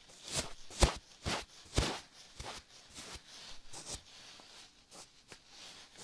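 Close-miked ASMR handling sounds: a series of short, irregular scratches and taps, about a dozen in all, the loudest a little under a second in.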